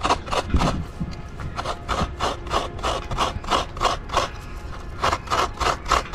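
Fresh coconut half being grated by hand on a coconut scraper: an even run of scraping strokes, about three a second, as the white flesh is shredded.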